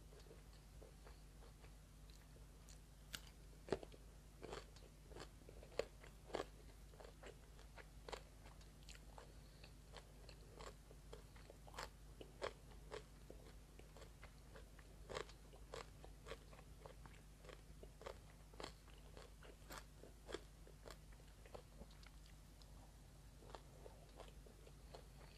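Close-miked chewing and wet mouth clicks of a person eating rice with soy-braised pork belly. The sounds come as irregular sharp smacks and crunches, about one or two a second, over a faint steady low hum.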